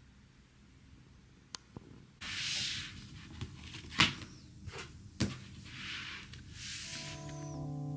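Household handling noises: a few clicks and knocks with short bursts of rustling, the loudest a sharp knock about four seconds in. Soft electric piano music comes in near the end.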